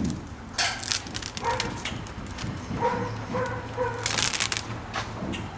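Self-adhered window flashing tape and its backing paper being handled, crinkling and crackling, with two short sharp tearing or peeling sounds, about half a second in and about four seconds in.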